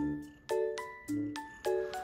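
Background music: a light tune of short struck notes that die away, with a steady beat of about two notes a second over soft bass notes.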